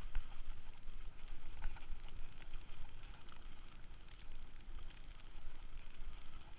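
Mountain bike rolling along a gravel fire road: tyres crunching over loose gravel and the bike rattling, with scattered sharp clicks over a steady low wind rumble on the microphone.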